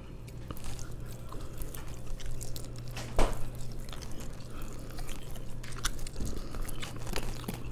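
Close-miked chewing and biting of food, with many small wet clicks and one sharper knock about three seconds in, over a steady low hum.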